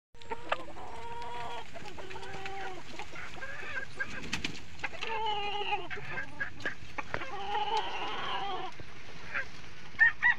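Chickens clucking in drawn-out calls of about a second each, four or so times, with a few sharp taps between them. Louder, higher-pitched calls break in near the end.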